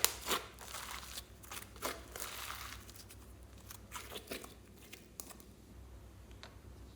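Slime being pressed and worked by hand, giving crackling, crinkly clicks that come thick for the first few seconds and then thin out to a few single pops.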